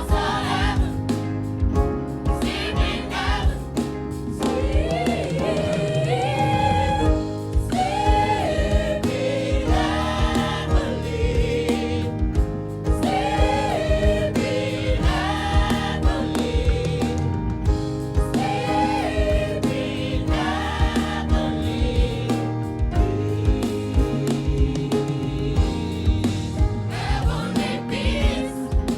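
Gospel choir singing with band accompaniment, over a steady beat.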